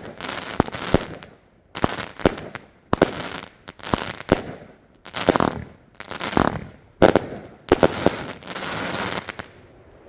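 Blazer fireworks cake from Extreme Fireworks firing a rapid series of shots. Each sharp report is followed by a spell of crackling, and the volley dies away near the end.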